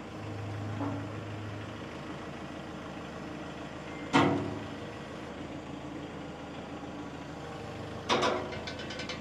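Small tractor's engine running steadily as its front loader bucket holds up a mower by a chain, with a stronger low hum in the first couple of seconds. A sharp metal clank about four seconds in, and a rattling clatter near the end.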